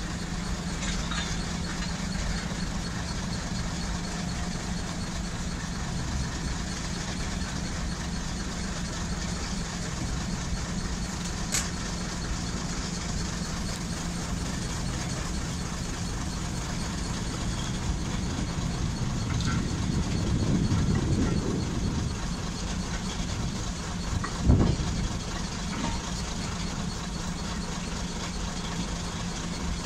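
Small Ruston Hornsby diesel shunter's engine idling steadily. It swells louder for a few seconds about two-thirds of the way through. A single sharp thump comes shortly after.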